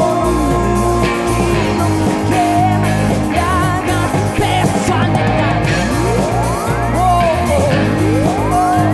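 Live rock band playing with a male voice singing over electric guitars, drums and keyboards. Two rising sweeping tones come in during the second half.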